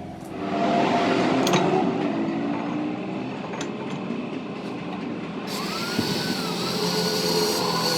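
A power tool running in a metal workshop, starting up about half a second in; a higher hiss joins about five and a half seconds in, over a whine that dips and rises as the load changes.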